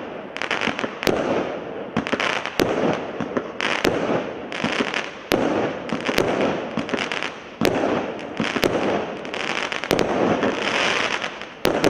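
Devco Space Adventure firework firing shot after shot, about one every one to two seconds. Each shot is a sharp bang, followed by the crackling and fizzing of the stars breaking in the air.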